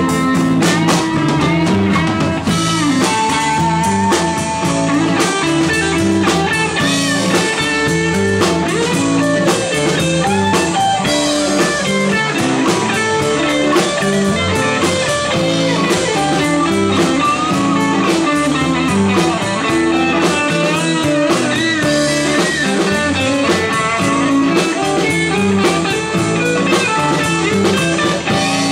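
Live rock band playing, with electric guitars leading over a drum kit.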